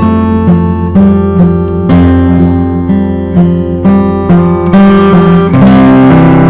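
Background music: acoustic guitar plucking a melody, with notes struck at a steady pace of about two a second.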